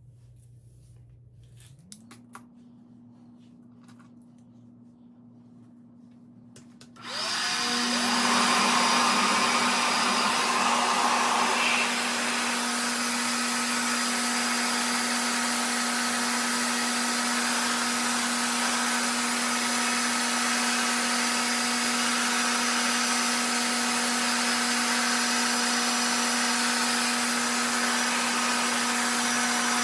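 RevAir reverse-air blow dryer running: a faint motor hum rises in pitch about two seconds in, then about seven seconds in it turns into a loud, steady rush of suctioned air with a steady pitched hum.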